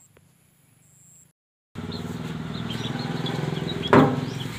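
A steady low machine hum with birds chirping over it, starting abruptly about two seconds in after near silence, and a single sharp knock near the end.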